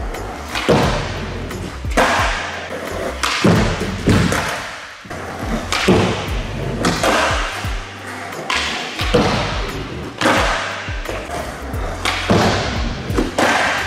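Background music with a steady beat, over skateboards hitting and landing on a wooden manual pad.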